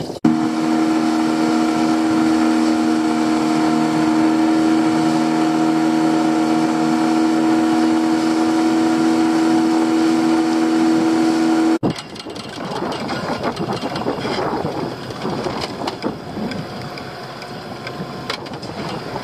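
Small fishing boat's engine running steadily under way, a loud even hum with a clear pitch. About twelve seconds in it cuts off abruptly, giving way to quieter, uneven splashing and handling noise at the boat's side.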